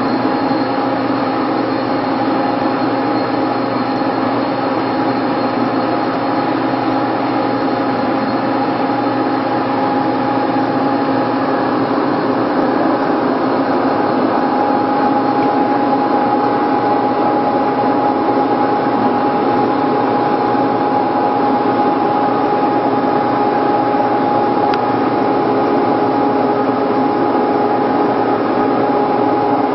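Haas CNC lathe running a turning program: a steady machine whir from the spindle and drives, with several constant tones over it.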